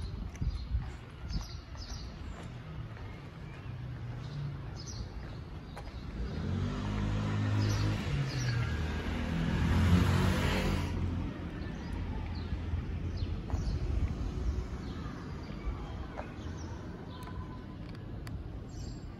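Street ambience with a motor vehicle passing by: its engine and tyre noise swell up about six seconds in, peak around ten seconds and fade away. Small birds chirp now and then.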